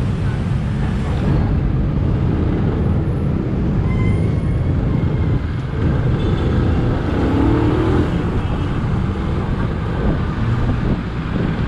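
Motorcycle riding through city traffic: steady engine, road and wind noise on the rider's microphone, with a brief rising tone about seven seconds in.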